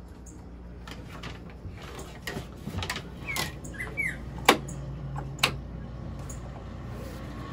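A small electronic keyboard being switched on and readied: a few sharp clicks of its switches or buttons, two short high squeaks, and a steady low hum underneath.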